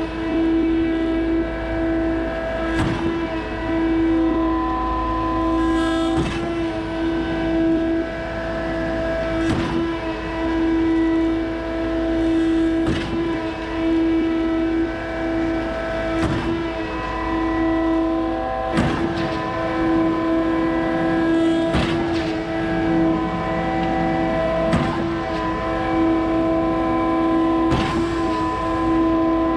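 Concrete boom pump truck running at a steady high engine speed while pumping concrete. A sharp knock comes about every three seconds as the pump changes stroke.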